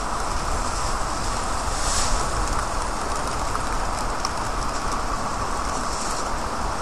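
Steady heavy rain falling on a wet street, an even hiss with no pauses.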